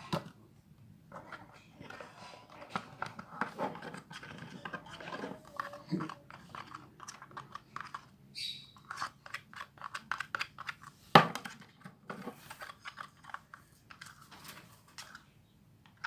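Clear glue, water and boric acid being stirred into slime: a long run of irregular wet clicking and squelching as the mixture starts to thicken, with one sharp knock about eleven seconds in.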